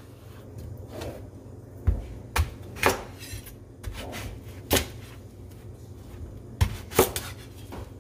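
Large kitchen knife chopping through pumpkin and knocking on a wooden cutting board: about six sharp knocks at uneven intervals.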